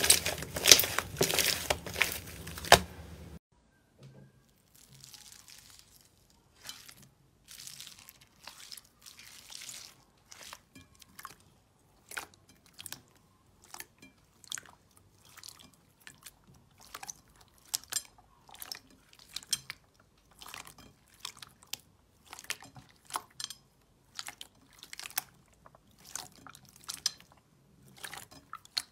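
Hands squeezing slime: a dense, loud crackling from a thick red-orange slime for about three seconds, then a sudden switch to clear slime loaded with small foam beads, giving scattered crunchy pops and crackles as it is pressed and poked.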